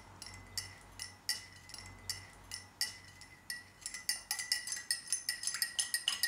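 Metal teaspoon stirring coffee in a china cup on a saucer, clinking against the cup's side, which rings after each strike. The clinks come slowly and spaced at first, then quicken into fast, steady clinking in the last couple of seconds.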